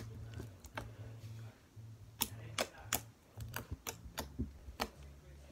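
Thick white slime being poked and pressed with the fingers, giving a run of sharp clicking pops, about seven of them, most between two and five seconds in.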